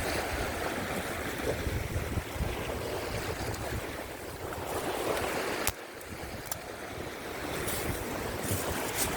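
Strong wind buffeting the microphone over the steady wash of rough surf breaking on rocks. A few sharp clicks, and the sound drops suddenly about halfway through.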